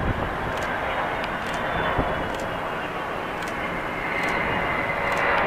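Jet engines of a Boeing 757 airliner landing, a steady rushing roar with a faint whine that grows louder about four seconds in as the main wheels touch down.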